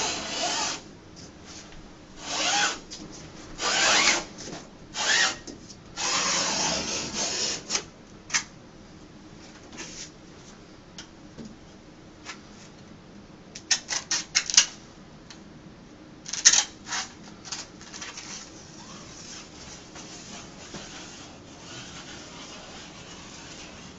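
A sharp utility knife drawn along a ruler, slicing through two overlapped layers of self-adhesive fabric wallcovering in a series of scraping strokes. Around the middle come two clusters of short sharp clicks, followed by faint rubbing.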